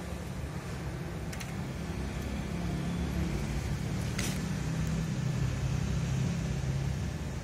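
Low, steady rumble of a motor vehicle engine that swells a little after the middle, with a few light clicks and one sharper click about four seconds in.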